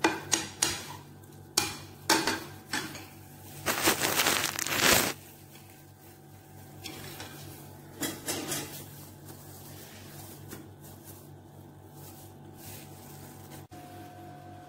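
A ceramic bowl being handled on a tiled floor: a run of sharp clinks and knocks, then a rough scrape lasting about a second, about four seconds in. A few more knocks come about eight seconds in, and after that only a faint steady hum remains.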